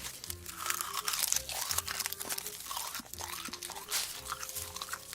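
Close-miked crunching and chewing of a hard, crunchy food, a dense run of irregular crackles and bites.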